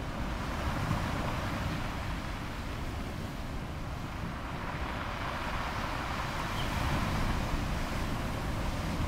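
Wind buffeting the microphone over the steady rush of rough sea breaking along a cruise ship's hull.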